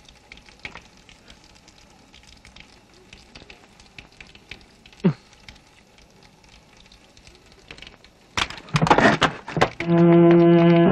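Animation soundtrack: faint crackle and scattered clicks, with a short sound sliding down in pitch about five seconds in. About eight seconds in comes a burst of loud noisy crashes, followed by a low, loud, held musical drone.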